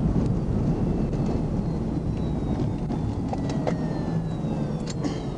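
Steady low rumble of a moving police patrol car, engine and road noise, with a few faint clicks.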